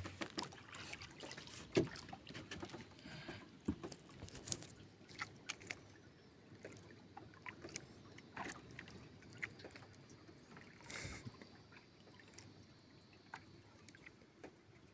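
Faint scattered clicks and knocks from a wooden outrigger canoe drifting on calm water, with one brief hiss about eleven seconds in.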